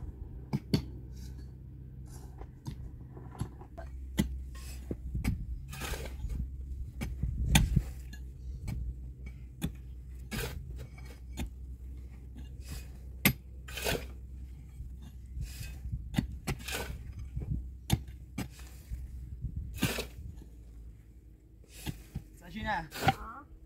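Irregular clinks and knocks of hard objects striking one another, over a steady low rumble.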